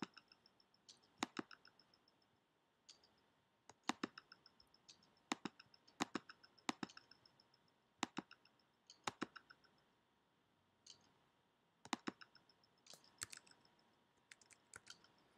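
Computer mouse clicks, irregular, about one a second with some in quick pairs.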